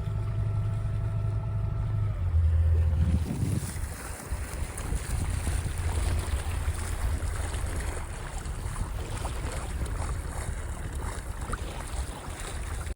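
A catamaran's engine runs steadily, its pitch dropping a little about two seconds in. From about three and a half seconds in, an even rush of wind on the microphone and water passing the boat takes over, with a low rumble underneath.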